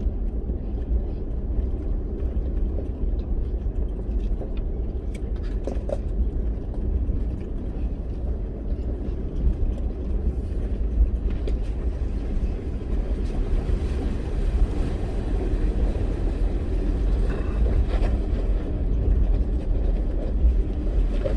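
4x4 vehicle driving: a steady low rumble of engine and tyres, with a few light knocks and rattles.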